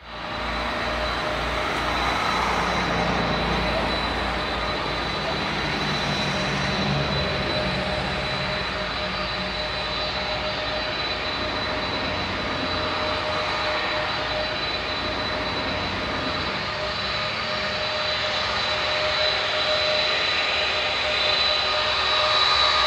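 C-5 Galaxy's four turbofan jet engines running as the aircraft rolls along the runway. A loud, steady, high-pitched whine sits over a rushing roar and grows a little louder near the end.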